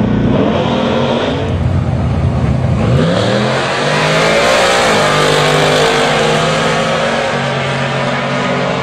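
Drag-racing launch: the 1978 Chevy van and the car beside it accelerating hard off the line at full throttle. Engine pitch rises sharply about three seconds in, then holds and steps as the vehicles run down the strip.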